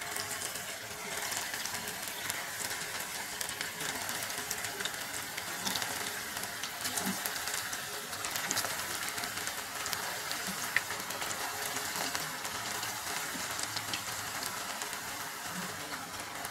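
Chicken pakora batter balls deep-frying in hot oil on medium heat: a steady sizzle with fine crackles as more balls are dropped into the pan.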